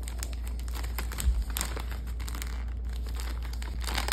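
Plastic snack bag of popcorn crinkling as a child's hands pull at its top to open it, with one dull thump about a second in.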